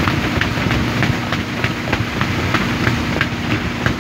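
Motorboat under way, heard from inside its windscreened cabin: the engine runs with a steady drone, and irregular sharp knocks and rattles come every fraction of a second.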